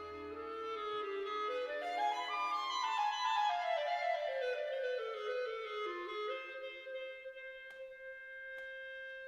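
Background music: a clarinet-like wind melody climbing in steps, then falling back and settling on a long held note.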